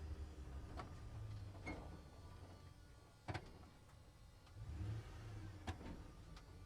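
Truck running, a low engine rumble that dips and swells, with four sharp clicks or knocks, the loudest about three seconds in.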